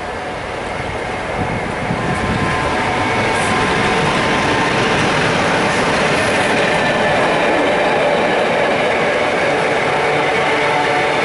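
Class 47 diesel-electric locomotive passing close with a train of coaches, its twelve-cylinder Sulzer engine running under power along with wheel and rail noise. It grows louder over the first few seconds as the locomotive draws level and stays loud as the coaches go by.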